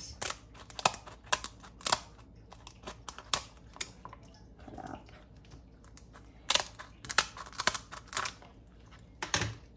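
Kitchen scissors snipping through crisp roast pork crackling: runs of sharp crunches, with a lull around the middle. The crunching is the sign of well-crisped skin.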